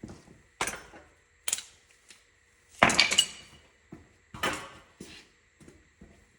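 Metal hand tools clanking and rattling as they are handled and set down, a series of sharp clanks with a brief ring, loudest about three seconds in.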